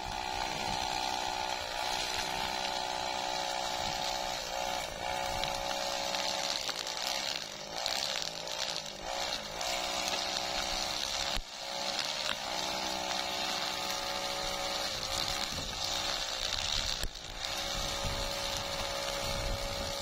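Petrol brush cutter (string trimmer) running fast while cutting grass and weeds, a continuous high engine note whose pitch dips briefly and recovers several times under load.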